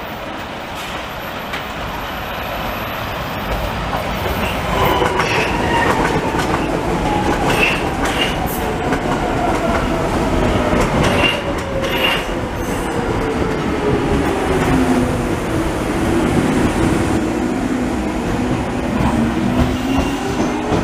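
Vienna U-Bahn metro train running past on its track, with a rumble and clacks of the wheels over rail joints. A whine falls steadily in pitch for about ten seconds as the train slows, then starts to rise again near the end.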